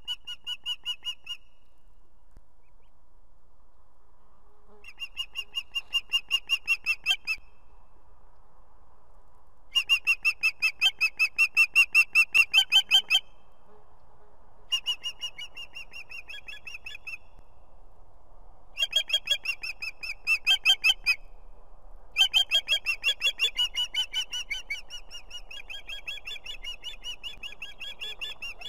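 Female osprey calling in bouts of rapid, high, whistled notes a few seconds long, with pauses between them; she is calling the male to bring food. Near the end the calling runs on longer without a break.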